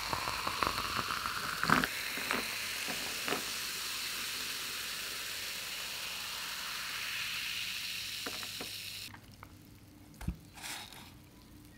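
A carbonated cola is poured from a can over ice cubes in a glass and fizzes steadily, with sharp crackles and clicks from the ice in the first few seconds. The fizzing cuts off suddenly about nine seconds in. Near the end there is a soft thump and a brief rustle.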